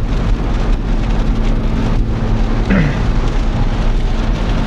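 Car interior noise at road speed in heavy rain: tyres hissing on wet tarmac and rain on the bodywork over a steady engine drone in fourth gear.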